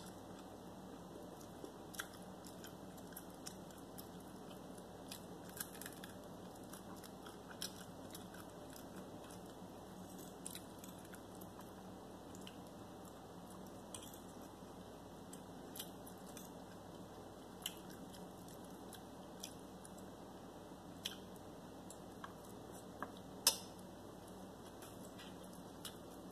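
A person chewing fried chicken and noodles, with scattered sharp clicks of a metal fork against a ceramic plate; one click about three-quarters of the way through is louder than the rest.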